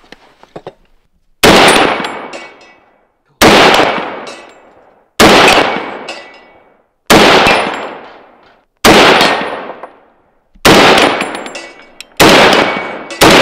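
Eight shots from a Nemo Arms .300 Win Mag semi-automatic rifle with a muzzle brake, fired about two seconds apart. Each report is very loud, with a long echo that dies away before the next shot.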